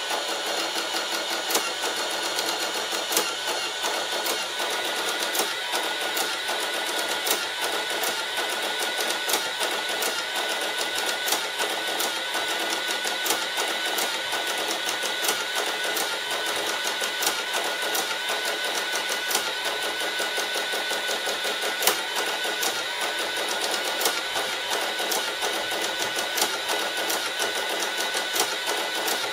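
Sharp XE-A107 cash register's built-in receipt printer printing a long X (flash) report: a steady mechanical whirr with fine rapid clicking, going on without a break.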